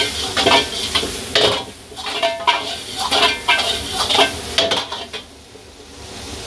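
Metal ladle scraping and clanking against a wok in quick strokes, two to three a second, as shredded vegetables are stir-fried over a high flame, with a sizzle underneath. The strokes stop about five seconds in, leaving a quieter steady sizzle.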